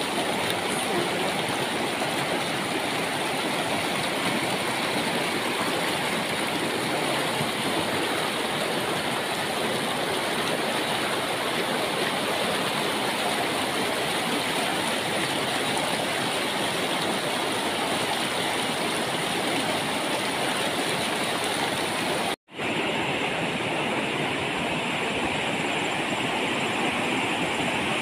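Shallow river rushing over boulders in white-water rapids, a steady, dense rush of water. The sound cuts out for an instant about three-quarters of the way through and resumes.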